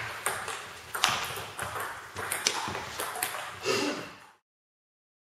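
Table tennis ball struck back and forth by bats, one faced with Nittaku Monophonic pimpled rubber, and bouncing on the table in a quick rally: a string of sharp pinging clicks a few tenths of a second apart, with a short echo after each. The sound cuts off to silence a little over four seconds in.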